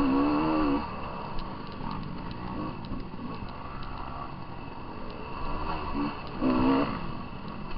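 Dirt bike engine revving on a rough trail: a rev in the first second, running lower through the middle, then revving up again about six and a half seconds in. Scattered sharp ticks throughout.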